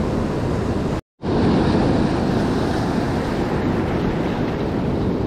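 Surf breaking and washing over rocks, with wind rumbling on the microphone. The sound cuts out completely for a moment about a second in.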